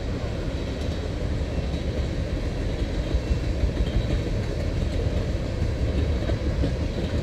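Norfolk Southern freight train of loaded tank cars rolling past: a steady rumble of steel wheels on rail with light scattered clicks.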